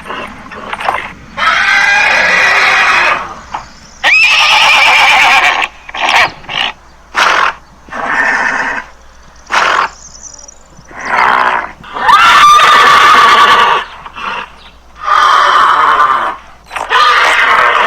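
Horse neighing over and over, a long wavering whinny every second or two.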